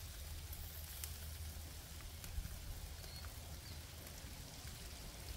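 Chicken sizzling on a barbecue grill as sauce is brushed on: a faint, steady hiss and crackle, over a low wind rumble on the microphone.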